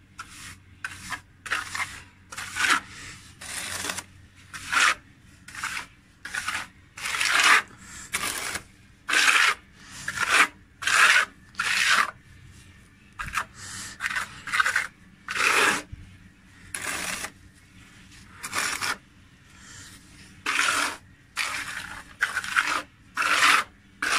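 Steel plastering trowel scraping wet ready-mix cement plaster across concrete to fill cracks. Short rasping strokes follow one after another, with a brief lull about three-quarters of the way through.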